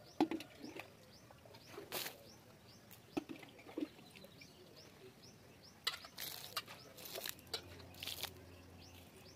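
Water flung by hand onto a packed-dirt yard, landing in several splashes, most of them close together in the second half. Birds chirp faintly throughout.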